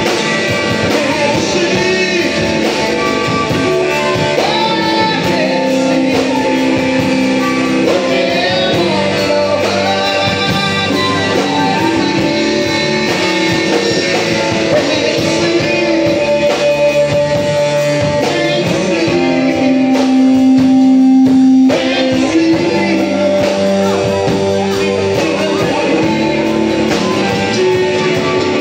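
Live rock band playing a blues-rock number: electric guitars over a drum kit, with singing. A long held note swells about twenty seconds in and breaks off sharply.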